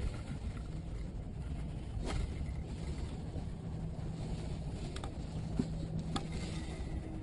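Steady low rumble of wind and movement on a body-worn camera's microphone, with single sharp clicks about two, five and six seconds in.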